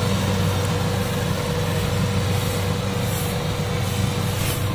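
Kubota DC-70 combine harvester's diesel engine and threshing machinery running steadily under load while cutting ripe rice: a constant low drone with a faint steady whine over it.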